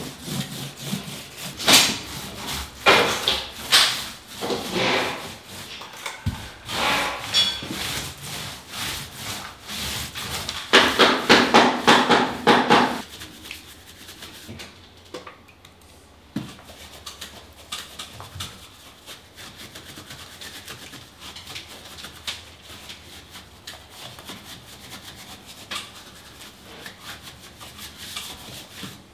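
A small 4-inch roller rolled back and forth over drywall and old plaster, applying bonding adhesive: a series of rasping strokes, with a fast run of them about eleven seconds in. For the second half only faint light scrapes and taps are heard.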